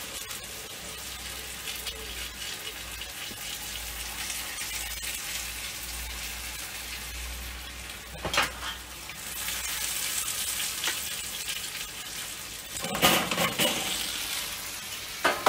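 Steady sizzling hiss from a charcoal kettle grill, with the rotisserie motor humming low until about eight seconds in. Then come a sharp metal click and a clatter as the spit and the drip dish are lifted out.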